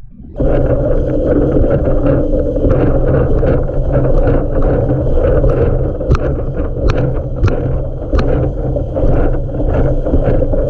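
Loud, steady rush of wind and water from a windsurf board planing at speed, with heavy wind noise on the microphone. Starts suddenly about half a second in; a few sharp clicks come between about six and eight seconds in.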